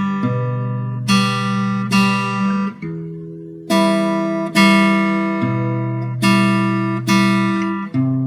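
Acoustic guitar being strummed slowly: single chord strokes about once a second, each left to ring, with the chord changing every few seconds.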